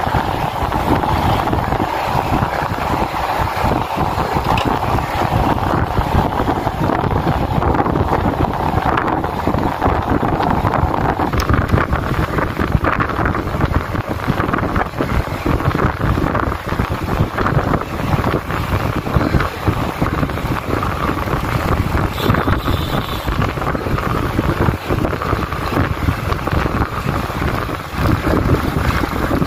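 Wind rushing over the microphone of a handlebar-mounted camera on a road bike moving at speed: a loud, steady rush.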